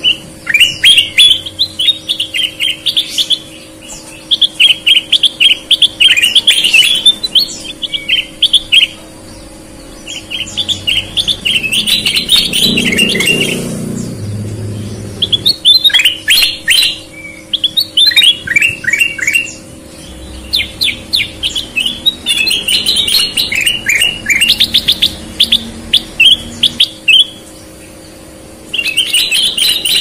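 Caged ruby-throated bulbul (kutilang emas) singing: repeated bursts of quick, chattering whistled notes, each phrase a second or two long, with short pauses between.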